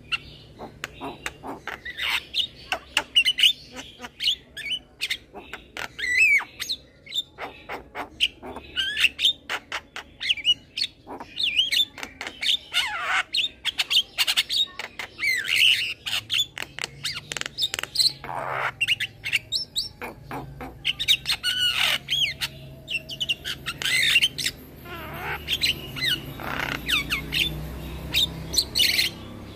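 Young male Javan myna singing a rapid, almost unbroken run of sharp clicks, chirps and harsh squawks, with a few longer down-sliding calls mixed in.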